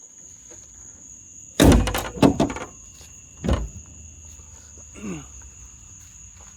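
The hood of a 2000 Ford Mustang slammed shut about a second and a half in, with a short rattle, then a second thud about two seconds later. Crickets trill steadily in the background.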